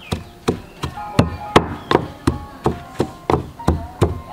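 Wooden pestle pounding in a wooden mortar, an even knock about three times a second, crushing garlic for a curry paste.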